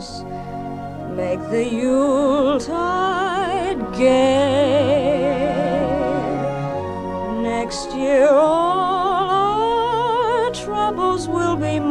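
Music: a singer holding long notes with wide vibrato, sliding up into some of them, over a low sustained accompaniment.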